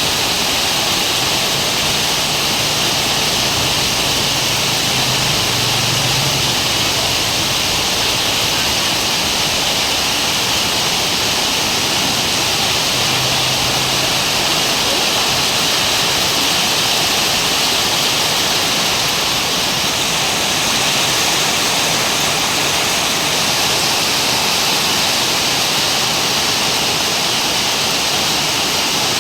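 Heavy rain falling in a steady, loud downpour.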